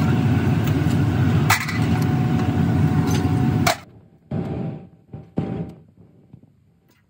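Steady loud roar of foundry machinery with a faint steady hum and two sharp metal knocks, cutting off suddenly about three and a half seconds in. Then it is much quieter, with a few short rattling bursts as lumps of coal are handled in a metal pan.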